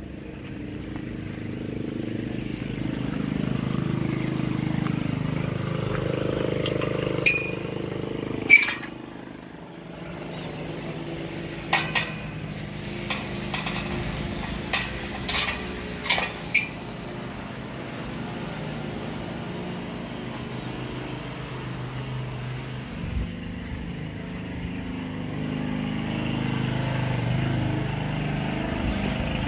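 Walk-behind lawn mower engine running steadily, its level rising and falling, with a dip about nine seconds in. Several sharp clicks stand out in the middle.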